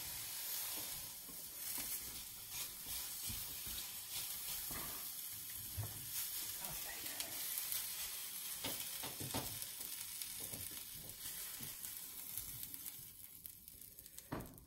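Red onions and red pepper sizzling in a hot frying pan cooked without oil, a steady hiss, with a few knocks and scrapes as a silicone spatula scrapes them out; the sizzle dies away near the end.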